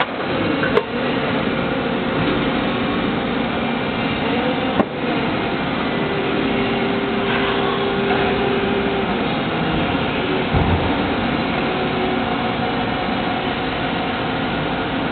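Plastic injection moulding machine running with a steady mechanical drone. There is a sharp click about a second in and another about five seconds in, a steady tone held for about three seconds in the middle, and a low thump about two-thirds of the way through.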